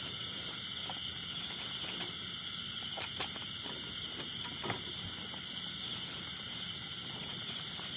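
Steady high-pitched chorus of night insects, with a few faint clicks as a wire-mesh cage rat trap is handled.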